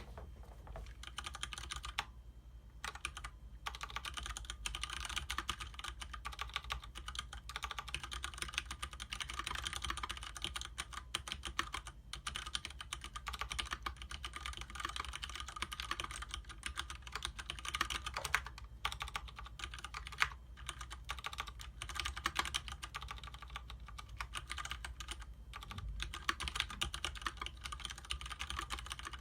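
Sustained fast typing on a Leopold FC750R mechanical keyboard with Cherry MX Clear tactile switches and DSA-profile keycaps: a dense run of keystroke clicks, broken by a few brief pauses.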